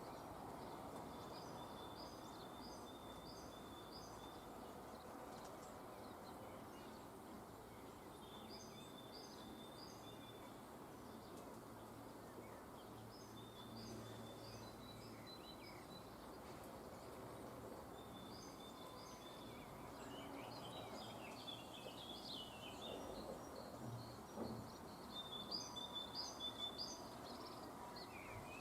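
A songbird sings a short, high phrase again every few seconds over steady outdoor background noise. About three-quarters of the way in, a white stork bill-clatters: a few seconds of rapid dry knocking, the loudest sound here.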